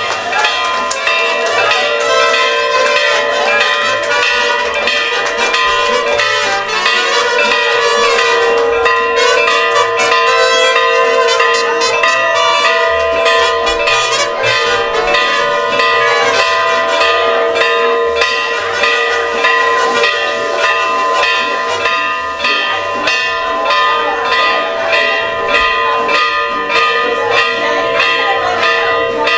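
Church bells ringing a fast, continuous peal, struck about three times a second, their tones ringing on over each other.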